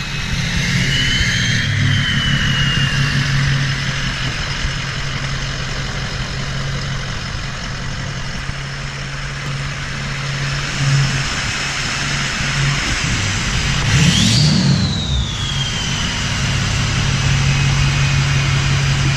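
A 6.4 Power Stroke V8 diesel truck engine running steadily, with a turbo whine. Near the start it rises and falls gently. About two-thirds of the way through, the engine is revved: the whine climbs sharply, then winds down slowly as it settles back.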